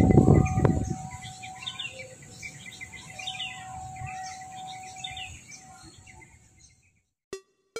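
Birds chirping in short repeated calls over a steady high insect hum, opening with a loud low rumble for about the first second. The sound fades out near the end, leaving a click or two.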